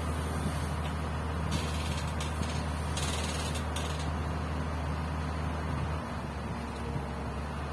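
Komatsu PC200 excavator's diesel engine running steadily, with a few short bursts of hissing between about one and a half and four seconds in. The engine note eases slightly about six seconds in.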